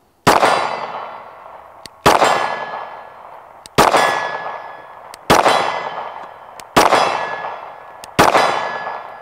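Glock 48 9mm pistol fired six times at a slow, even pace, about one shot every second and a half. Each shot echoes and decays, with the ring of a steel target plate being hit.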